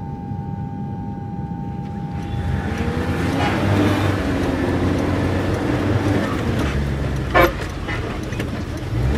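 Busy street traffic heard from inside a slow-moving car: a steady engine hum and street noise, with one short car horn toot about seven seconds in. A held tone fades out over the first few seconds.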